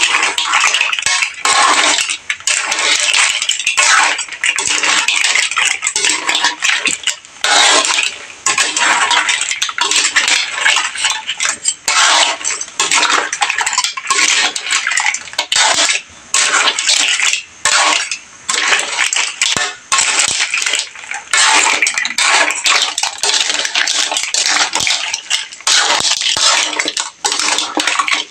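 Metal spatula scraping and clanking against a large wok as shell-on seafood (crabs, mussels, shrimp) is stirred and tossed in sauce. The clatter is irregular, with a few brief pauses.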